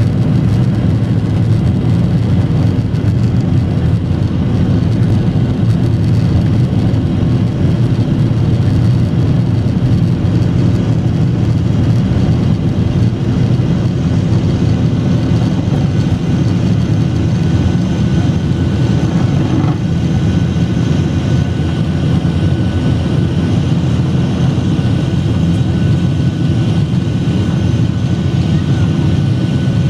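Jet airliner's engines running steadily at takeoff power, heard from inside the cabin. A loud, even rumble that holds level, with a faint high whine joining about halfway through.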